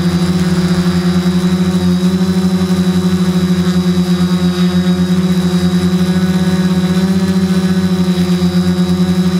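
Q450 quadcopter's electric motors and propellers humming steadily while it hovers, heard close up from the camera mounted on the frame. There is a fast, wavering throb as the rotors beat against each other, with a thin high whine above.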